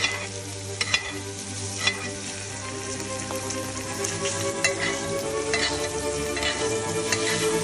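Steak searing in butter in a cast-iron skillet, a steady sizzle and spatter, with several sharp clicks of a metal spoon against the pan as the hot butter is basted over the meat.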